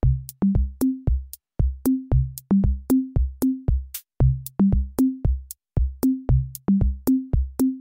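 Electronic intro music: a quick, steady drum-machine beat of kick drums and short pitched bass hits.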